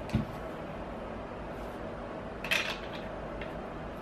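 Small hard paintball barrel parts handled by hand: a soft knock right at the start, then a brief clack about two and a half seconds in and a faint click after it, over a faint steady hum.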